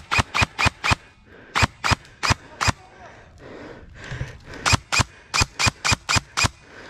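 Airsoft gun firing rapid single shots, about four a second, in three strings: five shots, then five more, then a longer string of about eight near the end.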